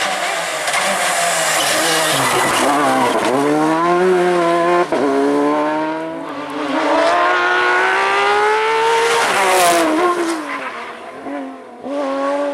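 Rally car engine at full throttle on a stage. The pitch dips, then climbs hard with a quick gear change about five seconds in, and falls away again near the end.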